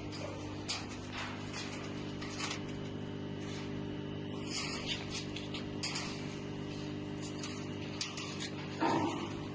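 TORWATT 1610 DUOS CO2 laser cutting machine running: a steady, multi-toned hum from its motors and fans, with scattered short ticks and a louder brief noise near the end.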